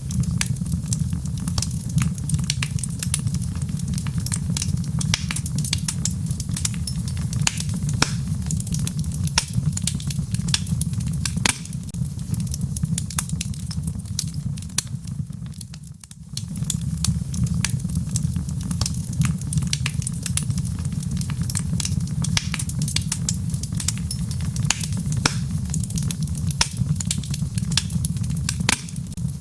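Wood logs burning in a fireplace: a steady low rumble of flame with frequent sharp crackles and pops. About halfway through, the rumble drops away for a moment and then comes back.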